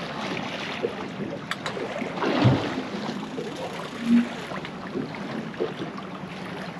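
Water sloshing and wind noise around a small fishing boat at sea, with a few short knocks, the loudest about two and a half seconds in.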